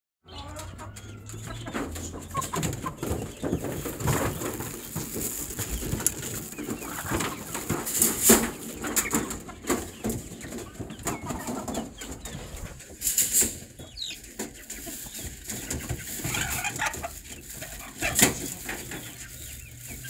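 Aseel chickens shifting about in wire cages: rustling and scratching, a few sharp knocks and wing flaps, the loudest about every five seconds, with now and then a soft cluck.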